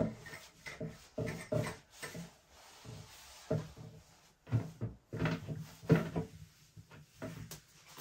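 A microfiber cloth wiping a plastic toilet seat and lid in short, separate rubbing strokes, with light handling sounds of the plastic lid.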